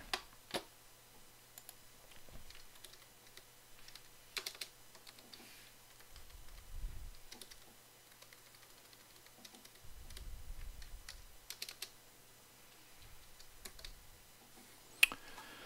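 Quiet typing on a computer keyboard, keystrokes in short scattered runs with pauses between. Two soft low rumbles, about seven and eleven seconds in.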